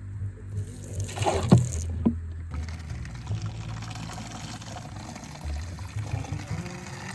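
Water running and pouring from a mountain spring's spout, a steady splashing trickle, with background music.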